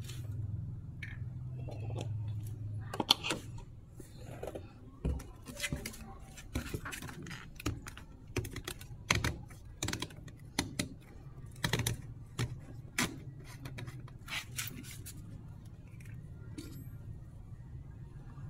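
Irregular light clicks and taps of plastic being handled: a plastic funnel set into a motorcycle engine's oil filler hole and a plastic oil bottle opened, over a faint low steady hum.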